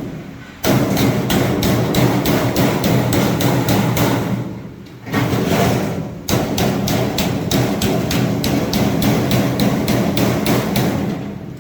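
Hammer rapidly striking the sheet-metal drive cleat on a slip-and-drive duct joint, knocking it over to fasten a flexible duct connector. Quick metallic blows come about four or five a second, in two long runs with a brief pause about five seconds in.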